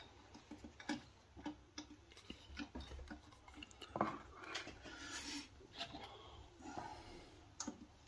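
Faint, irregular clicks and taps of a metal Zippo-style lighter case being handled and turned over in the hand, a slightly stronger click about four seconds in and another near the end.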